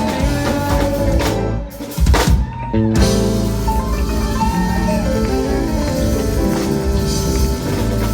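Live blues band playing, with guitar and drums, heard through a phone's microphone.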